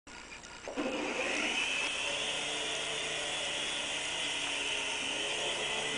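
Small toy RC helicopter's electric motors and rotor gears starting up about a second in, then a steady high-pitched whir as it flies.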